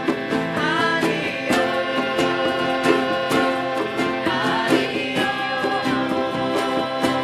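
Live acoustic music: plucked guitar strings and a steady percussive beat under a singing melody that slides up and down in pitch.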